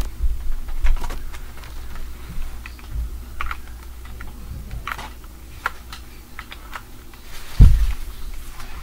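Irregular light clicking and tapping, like typing on a keyboard, broken by several dull low thumps. The heaviest thump comes a little before the end.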